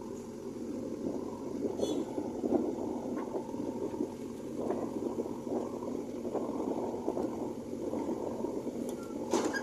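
JCB 3DX backhoe loader's diesel engine running as it works, its level rising and falling unevenly, with a sharp click near the end.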